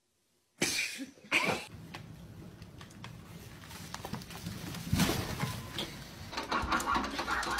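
A brief silence, then a domestic cat crying in short calls, the loudest about half a second, a second and a half and five seconds in.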